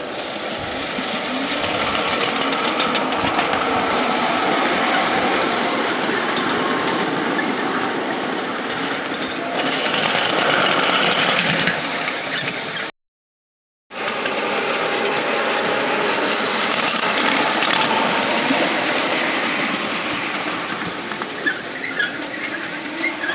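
Miniature 5-inch gauge ride-on train running on the track: a steady mechanical rumble and rattle of wheels on rail that builds up over the first couple of seconds. It breaks off for about a second partway through, then carries on.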